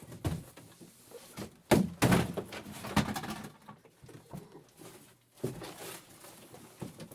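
A few dull thuds and knocks, the loudest two about two and three seconds in, with fainter scuffling between.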